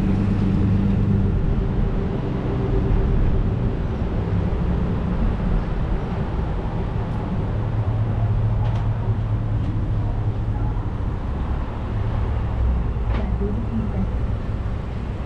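City street traffic: a steady low rumble of car and truck engines, with an engine hum that grows stronger in the middle, and a few faint ticks.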